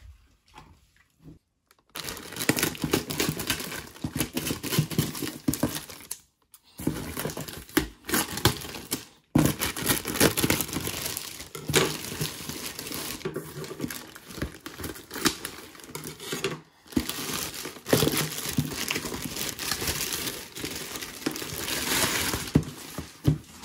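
Packaging crinkling and rustling as it is handled, starting about two seconds in, with a few brief pauses.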